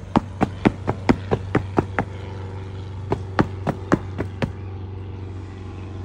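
A vehicle engine idling with a steady low hum, over it a quick run of sharp clicks, about four or five a second. The clicks go for about two seconds, pause, then come again for about a second and a half.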